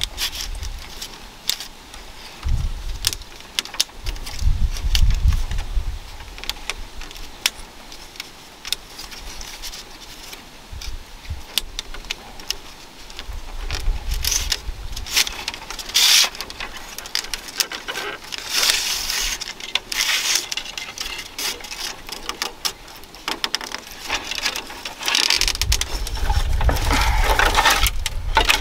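Thin bamboo strips clicking, rustling and scraping as they are threaded and pulled through the rim of a woven bamboo basket. A low rumble comes in near the end.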